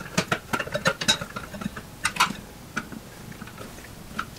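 Small metallic clicks and taps of a copper ground wire and hand tool against a steel electrical box as the ground wire is worked under a lay-in lug screw. The clicks come quickly for about two seconds, then thin out to a few scattered ones.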